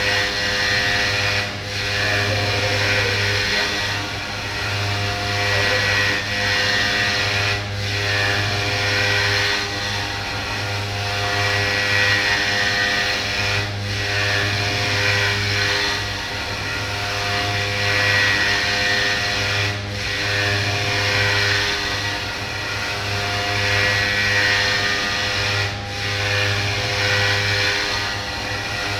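CNC orthopedic milling machine running steadily as its spindle mills a prosthetic part, a whirring drone with constant tones underneath. The sound dips briefly about every six seconds, at a regular cycle in the cut.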